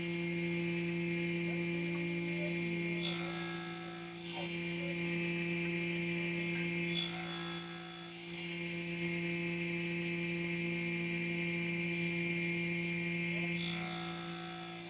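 A steady electrical hum, with three bursts of rasping, scraping noise about four seconds apart.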